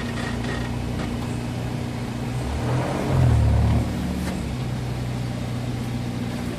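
Four-wheel drive's engine running at low speed over creek rocks, with a brief push on the throttle about three seconds in before it settles back.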